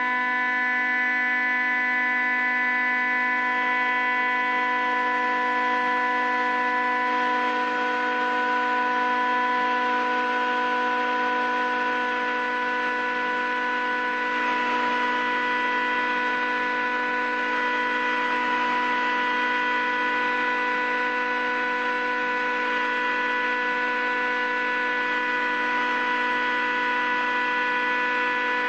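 Fritsch Pulverisette 19 universal cutting mill running, a steady hum of several stacked tones from its rotor. A grainy hiss builds over it after the first several seconds as sample is fed through the hopper and cut.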